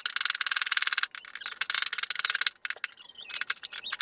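Hand ratchet clicking rapidly, metal on metal, in bursts of about a second with short pauses, while it is worked on a mower deck spindle pulley.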